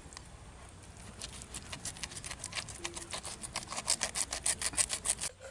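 Knife cutting through raw boneless chicken held in the hand, a quick run of short scraping strokes at several per second, louder over the last second or two and stopping suddenly just before the end.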